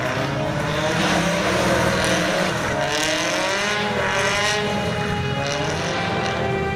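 A car's engine revving up and down in pitch while it drifts, with tyre noise from the sliding tyres.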